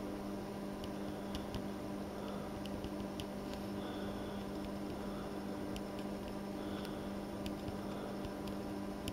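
Steady electrical hum with a constant low tone, over faint scattered ticks as solder paste is dabbed from a syringe needle onto circuit-board pads.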